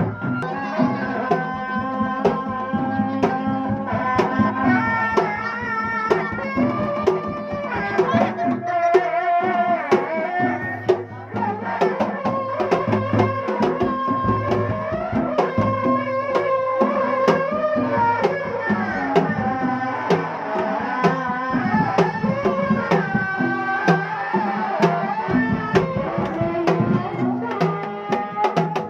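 Sundanese reak ensemble music: dense, fast drumming with a wavering high melody line over it, running on without a break.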